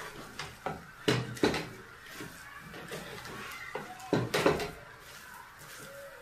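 Dull knocks of a cooking stick against a pot as stiff ugali is turned and pressed. About four knocks come in the first second and a half and two more a little past four seconds.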